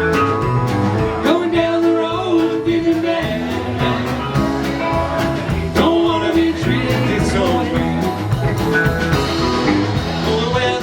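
Live rock band playing an instrumental passage: electric guitar lead with bent notes over bass and drums.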